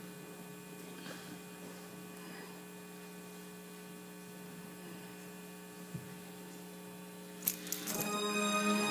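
Steady electrical mains hum with no speech. Near the end come two sharp knocks, and music begins just after.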